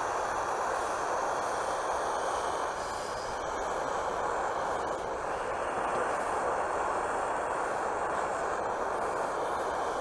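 Gas soldering iron's burner flame burning with a steady rushing hiss as it reheats a soldered seam in a copper gutter, so the solder runs fully through the joint.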